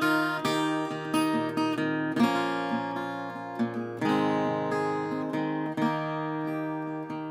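Steel-string acoustic guitar with a capo, fingerpicked, notes ringing into one another as an instrumental passage with no singing. The chord changes about two and four seconds in.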